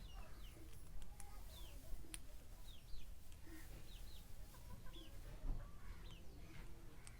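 Birds calling: repeated short, high chirps that slide downward, with some lower short notes, over a steady low hum.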